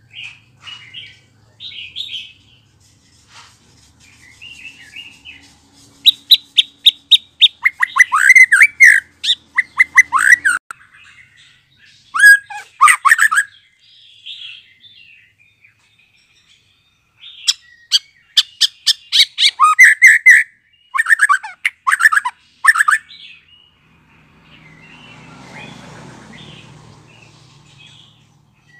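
Young white-rumped shama, just out of its juvenile spotted plumage, singing. Soft scattered chirps open the passage, then from about six seconds in come loud, fast runs of sharp repeated notes in several bursts. A soft low rushing noise follows near the end.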